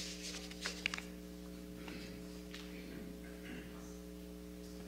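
Steady electrical mains hum, with a few brief clicks and paper rustles in the first second as sheets are gathered up from a lectern.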